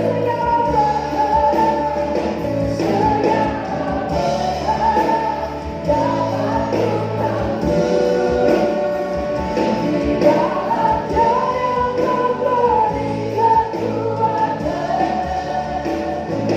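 A choir singing a gospel worship song with band accompaniment, steady bass under the voices.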